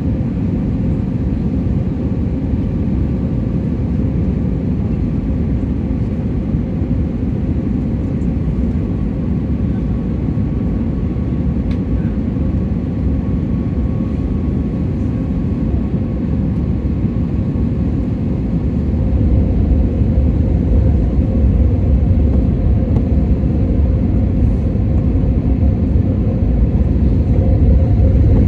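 Steady cabin noise of a jet airliner on its landing approach, heard inside the cabin by the window: a low rumble of engines and rushing air with a faint steady hum. The rumble grows louder about two-thirds of the way through.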